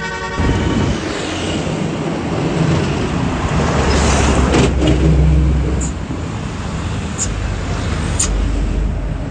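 A tour bus's engine and tyres rumbling past close by, loudest about four to six seconds in, with a few short sharp clicks in the later seconds. The last of a multi-tone musical bus horn cuts off about half a second in.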